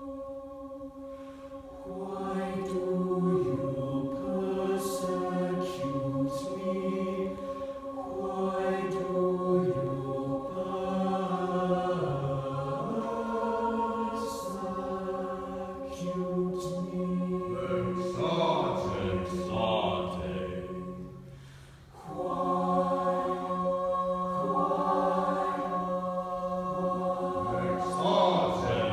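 Mixed-voice a cappella choir singing sustained chords, some upper notes held steady while the lower parts move. The sound fades about 21 seconds in, and the full choir comes back in a second later.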